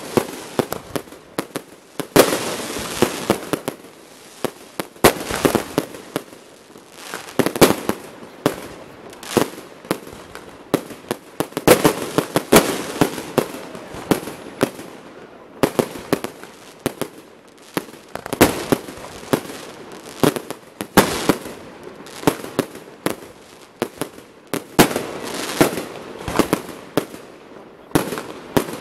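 Fireworks display: aerial shells bursting in a rapid, continuous barrage of sharp bangs and crackling, several a second, swelling into louder volleys every few seconds.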